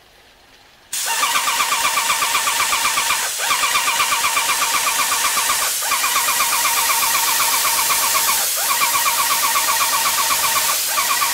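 SprayTech EP2105 electric airless paint sprayer's piston pump running, with a fast steady pulsing and the hiss of spray from the gun tip. It starts about a second in and breaks briefly every two to three seconds.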